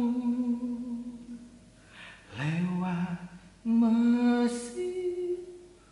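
Male voices singing a slow Indonesian pop ballad unaccompanied, in long held notes with short pauses between phrases; the last note steps up in pitch near the end.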